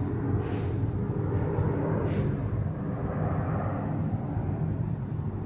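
Boeing 747's four jet engines rumbling steadily as the airliner flies past, with two brief hissing swishes about half a second and two seconds in.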